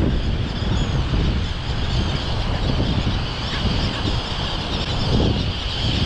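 A large seabird colony calling overhead: many overlapping harsh calls from a swarm of birds. A heavy wind rumble on the microphone runs underneath.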